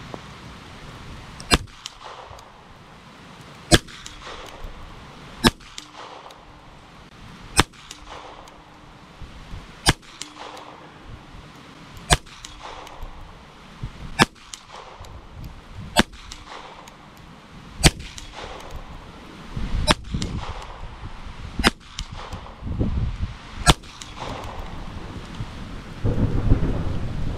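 Colt Government Model 1911A1 pistol in .22 Long Rifle, made under licence by Walther, fired about eleven single shots, roughly two seconds apart. A heavy low rumble comes in near the end.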